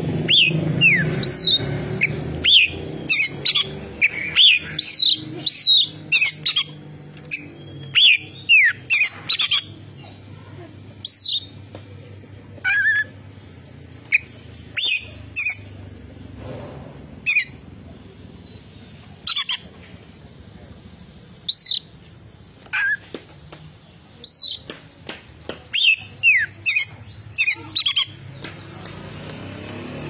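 Oriental magpie-robin singing: loud, clear whistled notes and quick downward-sliding phrases in short bursts, coming thick over the first ten seconds and more sparsely after.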